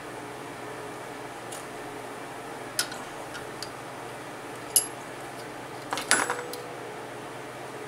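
Small steel parts and tools clicking and clinking as they are handled on a cylinder head: a light click about three seconds in, a sharper one near five seconds with a brief ring, then a quick run of clinks around six seconds.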